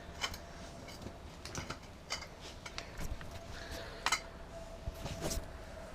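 Scattered light metal clicks and taps of hand tools as a breaker bar and socket are fitted and worked on an engine bolt, with a sharper click about four seconds in.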